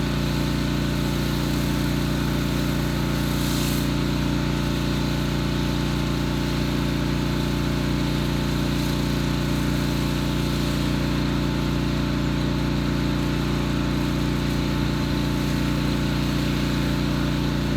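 Gas-engine pressure washer running steadily at constant speed, an even engine drone under a broad spray-like hiss.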